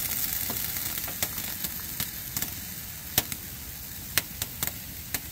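Hot coffee pouring from a stainless steel percolator into a mug: a steady hiss that eases slightly, with scattered sharp pops.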